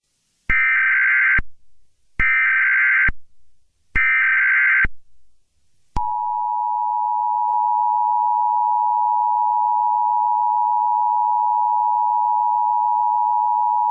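Emergency Alert System header: three short bursts of screeching digital data tones, each about a second long with a brief gap between, followed about six seconds in by the steady two-tone EAS attention signal, which sounds unbroken to the end.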